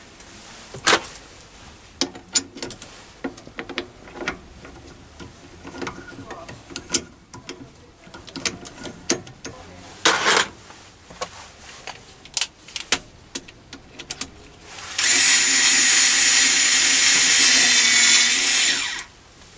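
Scattered metal clinks and knocks as the jaws of a four-jaw independent lathe chuck are handled. Near the end a cordless screwdriver runs steadily for about four seconds, driving the chuck's jaw screw through a home-made chuck-key bit.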